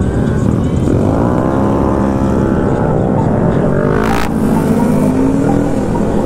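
Motorcycle engine heard from the rider's seat, accelerating with its pitch rising about a second in and then holding steady, over a constant wind rumble on the microphone. A brief rush of noise comes about four seconds in.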